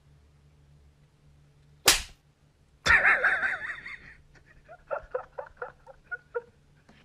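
One sharp smack about two seconds in, then a person laughing: a drawn-out laugh followed by short repeated bursts.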